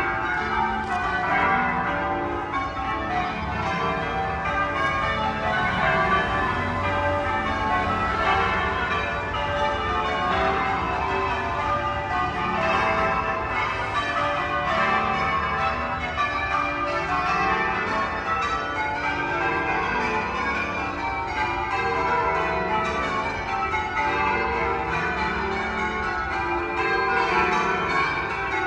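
A ring of twelve church bells change ringing: a continuous run of overlapping bell strikes, the tones ringing into one another at a steady level.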